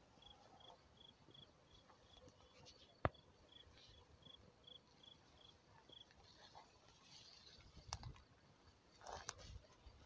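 Near silence, with a small insect chirping in a steady, even rhythm of about three short high chirps a second for the first six seconds. A single sharp click comes about three seconds in, and the grass rustles briefly near the end.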